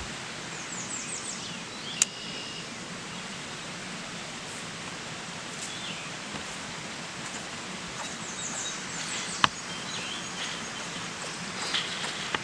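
Steady outdoor background hiss by a pond, with a bird giving quick runs of short high chirps twice. Two sharp clicks stand out, about two seconds in and again about nine and a half seconds in.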